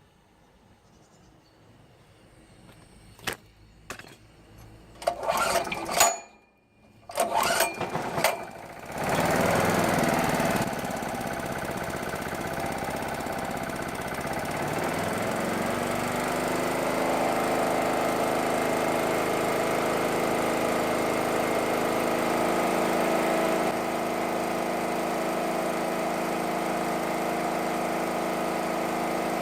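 Small petrol generator engine running on propane fed straight into its carburettor: a few sharp yanks of the pull-start, then it catches about nine seconds in. It settles into a steady run, its speed rising and then holding level.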